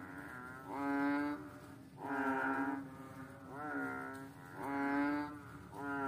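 A frog calling: a regular series of low, pitched calls, each a bit under a second long and bending up then down in pitch, about one every second and a half, over a steady low drone.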